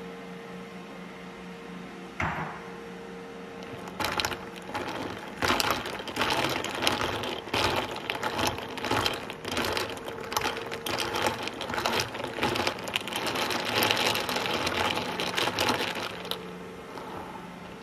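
A thin metal stirrer clinking rapidly and irregularly against the inside of a glass mason-jar mug while a drink is stirred, over a steady low appliance hum. A single knock comes about two seconds in, before the stirring starts.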